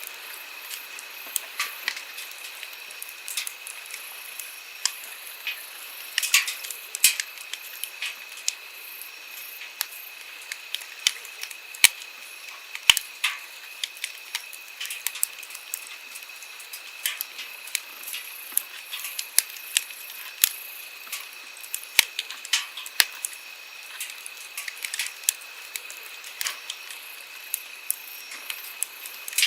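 Wood campfire crackling with frequent, irregular sharp pops over the steady rush of a flowing stream.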